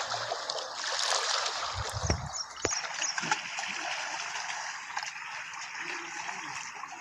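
Steady rush of flowing, splashing water, with a few low thumps in the first few seconds.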